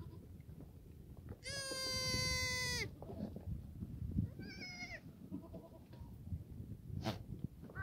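Black goats bleating: one long, loud bleat about a second and a half in, then a shorter, fainter, higher bleat around the middle, over a low shuffling rumble, with a sharp knock near the end.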